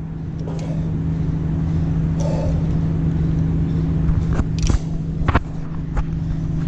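Indoor shooting range background: a steady low hum, broken by several sharp cracks of gunfire from about four to six seconds in.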